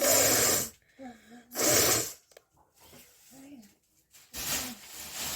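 Two loud, short blasts of air forced out through a person's nose, about a second and a half apart. Near the end comes a longer, softer breathy rush, with brief small vocal sounds in between.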